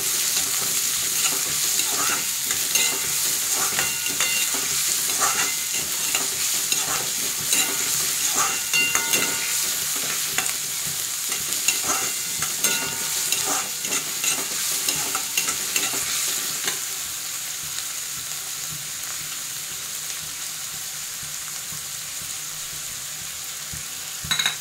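Chopped onions and cumin seeds sizzling in hot oil in a kadhai, being fried until brown, with a steel spatula scraping and clicking against the metal pan as they are stirred. The stirring clicks thin out about two-thirds of the way through, leaving the steady sizzle.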